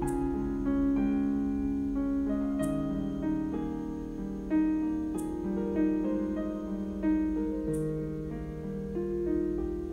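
Background piano music: slow held notes and chords, with a soft high swish accent about every two and a half seconds.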